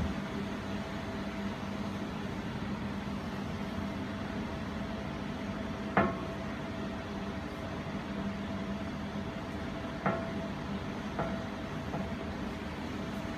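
Jewelry laser welding machine humming steadily with a few pitched tones as its power supply starts up, with sharp clicks: a loud one about six seconds in and two fainter ones a few seconds later.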